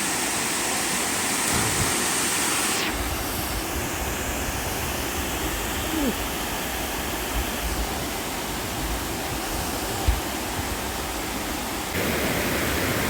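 Waterfall's steady rush of falling water. About three seconds in it turns duller with a low rumble, and it clears again near the end.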